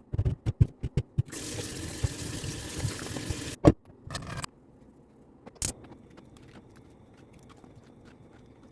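Kitchen tap running water for about two seconds, preceded by a quick series of clicks and knocks. A loud knock follows the water, then a few more clatters.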